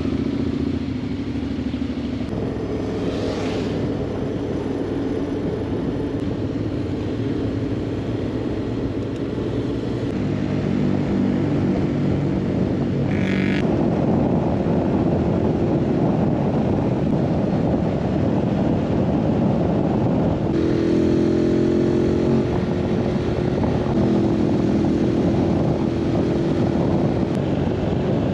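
Honda X-ADV 750's parallel-twin engine pulling away and then running at road speed, its note changing pitch several times, under heavy wind rush on the onboard microphone.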